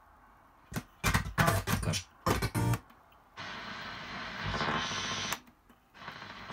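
Radio reception from a Rosita T 6500 tuner as it is switched between bands. First come short, chopped snatches of broadcast sound. Then, on long wave, a steady noisy hiss of reception that cuts out briefly near the end before more steady noise comes in on medium wave.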